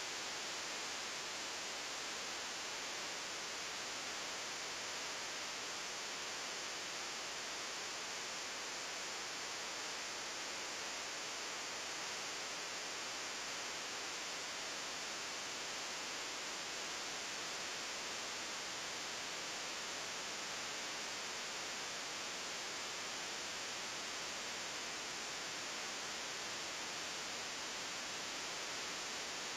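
Steady hiss of recording noise, even and unchanging, with no other sound heard over it.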